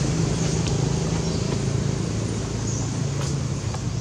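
A steady low engine hum, with a few faint clicks.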